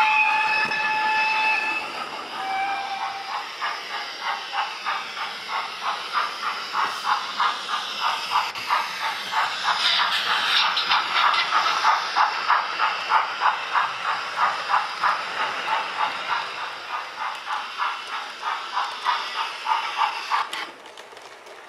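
YouChoos digital sound decoder in a Dapol SECR Wainwright D class model steam locomotive, playing through its small speaker: a held steam whistle, then a shorter, lower second whistle, followed by steady rhythmic chuffing of the exhaust beats with hiss. The chuffing drops much quieter just before the end.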